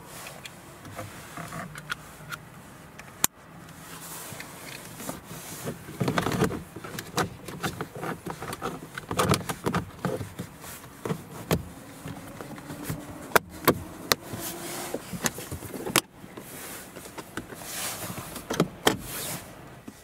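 Hands working car wiring connectors and plastic door trim: a string of sharp plastic clicks as the pieces snap into place, with rustling handling noise between them.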